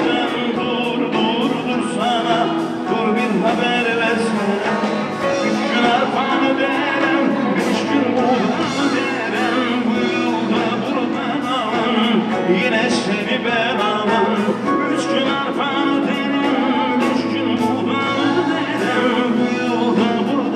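Live band music with a male singer: a folk-rock band of bağlama, guitar, keyboard and drums playing on stage while the singer sings into a microphone.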